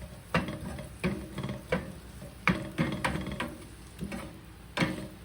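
A cooking utensil clacking irregularly against a pan, about eight sharp knocks, as asparagus is stirred and turned in the pan.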